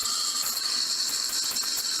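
Steam wand of a Protea Romanza espresso machine steaming heavy whipping cream in a pitcher: a steady hiss carrying a few high, even tones.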